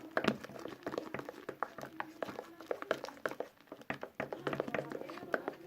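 Homemade slime being mixed and squished, giving a stream of irregular wet, sticky clicks and squelches. The slime is still too runny to hold together or stretch.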